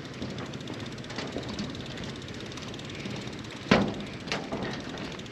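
Loaded touring bicycle being pushed across a wobbly footbridge: a steady rumble with scattered small knocks, and one loud clunk a little past halfway, followed by a softer one.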